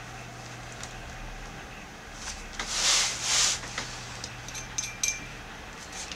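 A large sheet of calligraphy paper being shifted on the table: two short rustling swishes close together, about two and a half seconds in. A few light clicks and clinks follow, over a steady low hum.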